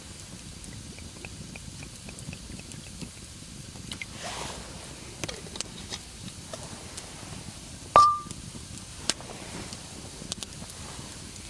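Campfire crackling quietly with scattered small ticks, and one sharp metallic clink with a brief ring about two-thirds of the way through.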